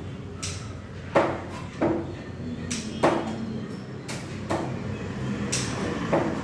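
Fish-market background noise: a steady low hum with several sharp knocks at irregular intervals.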